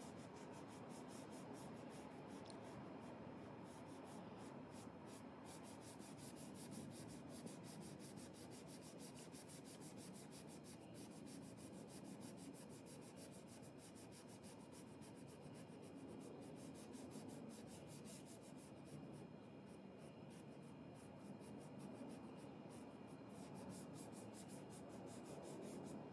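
Small paintbrush dabbing and dragging thick white paint across a canvas: faint scratchy brush strokes in quick succession.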